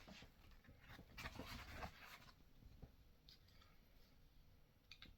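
Faint rustling and a cluster of light clicks from small 3D-printed plastic statue parts being handled, mostly in the first two seconds, then only a few isolated ticks over near silence.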